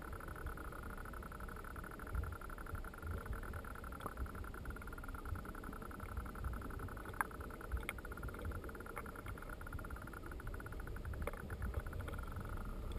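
Muffled underwater stream ambience heard through a submerged camera: an uneven low rumble of moving water with a steady thin whine above it, and a few faint clicks partway through.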